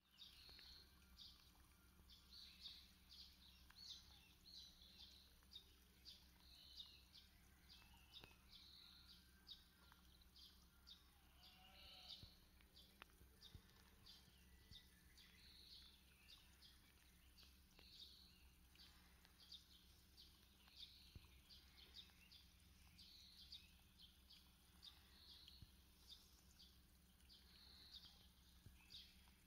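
Faint, repeated chirping of small birds, over a low steady hum.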